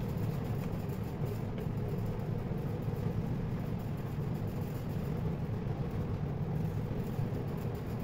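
Steady low rumble in the background, even and unbroken.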